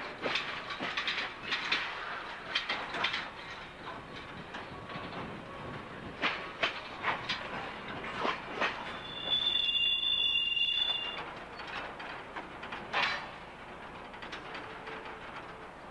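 Freight cars rolling down a hump classification yard through switches and track retarders: irregular sharp clicks and clanks of steel wheels over rail joints and frogs, with a high steady wheel squeal lasting about two seconds near the middle.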